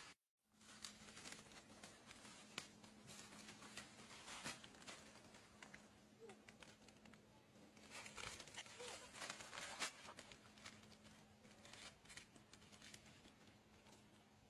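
Faint rustling and crinkling with many scattered small clicks, over a low steady hum that begins after a brief cut to silence at the start.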